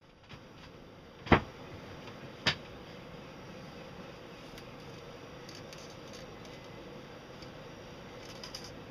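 Two sharp knocks a little over a second apart, the first louder, then a steady low hum with a few light clicks near the end.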